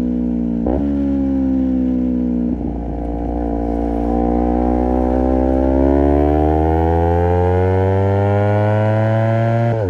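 Honda CBR250RR parallel-twin engine through a Project 79 slip-on exhaust, shifting gears twice in the first few seconds, then pulling hard with the revs rising steadily before a shift at the very end.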